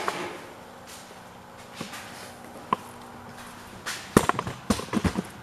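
Footsteps and handling knocks: a couple of faint clicks, then a cluster of sharp knocks about four seconds in, over a faint steady hum.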